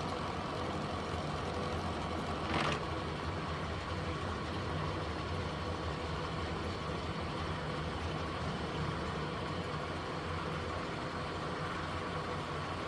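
Hardinge horizontal milling machine running under power, a steady, even mechanical hum from its motor and drive, with one short click about two and a half seconds in.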